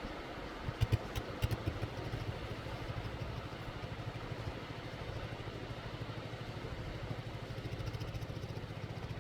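A small engine idling steadily with a fast, even pulse, with a few sharp clicks about a second in.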